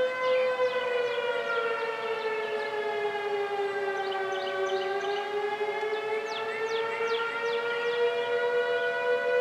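Outdoor warning sirens sounding a slow wail, several tones together, with the pitch sagging to a low point about halfway through and then climbing back. Short, quick falling chirps sound above it now and then.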